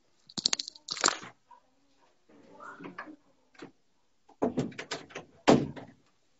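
A room door being closed: several clicks and knocks, then a louder knock about five and a half seconds in as it shuts.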